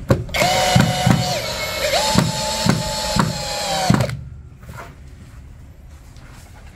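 Power drill driving a screw into wood: a steady motor whine that steps up in pitch about two seconds in, with several heavy knocks, cutting off suddenly after about four seconds.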